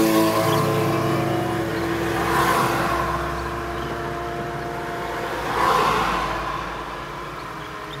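A motor engine drones at a steady pitch and slowly fades. Small waves wash onto the sand twice, about two and a half and six seconds in.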